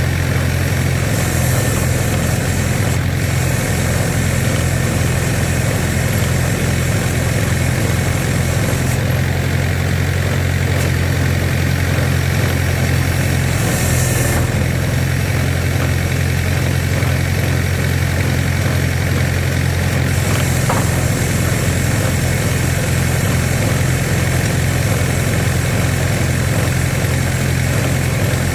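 Engine running steadily at one constant speed with an even low hum, the power unit working the hydraulic log splitter.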